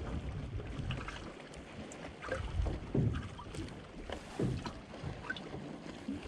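Water lapping against the hull of a small boat at sea, with wind buffeting the microphone in an uneven low rumble and a few soft knocks.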